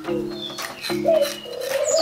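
Background music with sustained chords and a steady beat. From about halfway through, a dove coos over it in one long call that rises and then falls.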